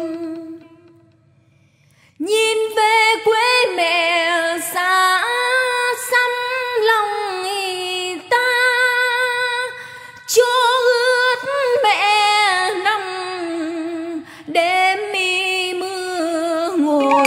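A woman singing a Vietnamese hát văn melody with heavy vibrato and ornamented, sliding phrases, entering about two seconds in after a held accompanying note fades away.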